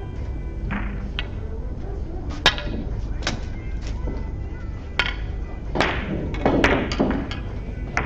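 Hard clicks of billiard balls being struck and knocking together on a Russian pyramid table, a sharp one about two and a half seconds in, then others near three and a half and five seconds, followed by a few duller thumps. Faint background music runs underneath.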